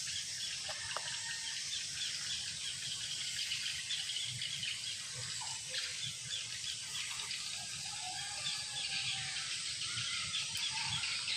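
Outdoor ambience: birds chirping, many short repeated calls over a steady high-pitched hiss.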